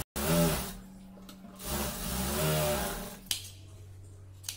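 Industrial lockstitch sewing machine running in two short bursts while stitching a seam in blouse fabric. Its motor whine rises and falls with each run. A single click comes near the end.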